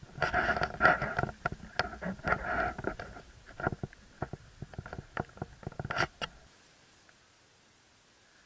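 Footsteps crunching and rustling through dry fallen leaves, in quick irregular crackles. They stop about six and a half seconds in, and only a faint background remains.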